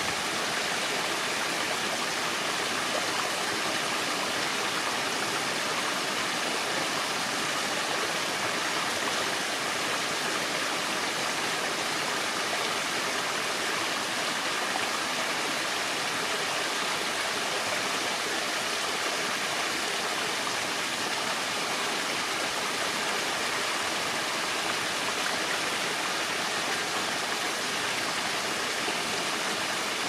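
Shallow forest stream flowing over rocks: a steady, unbroken rush of water, bright and hissy, with little deep rumble.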